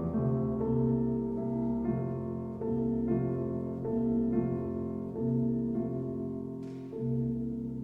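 Background music: slow piano chords, each held for under a second before the next, with a short breathy noise about two-thirds of the way through.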